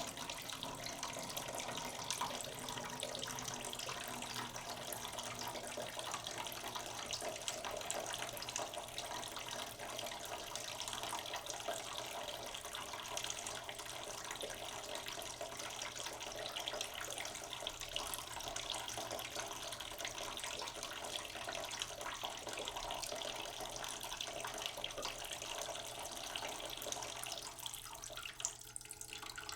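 Water running steadily from a kitchen tap, thinning out near the end.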